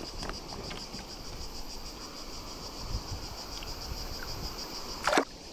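Insects chirring in a steady, rapidly pulsing high chorus. Near the end a brief, loud rush of noise cuts across it.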